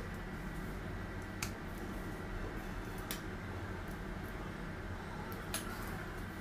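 Three light, sharp clicks of a knife and fondant cutter against a stone countertop while green fondant is cut and lifted, over a steady low hum and faint whine.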